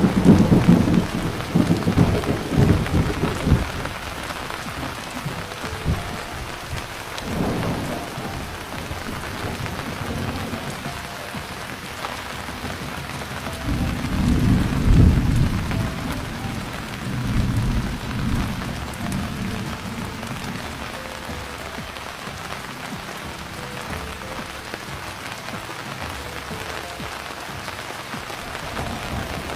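Steady rain with thunder rumbling: a heavy roll at the start that fades over a few seconds, then further, weaker rolls about a quarter of the way in and around the middle, while the rain hiss carries on evenly.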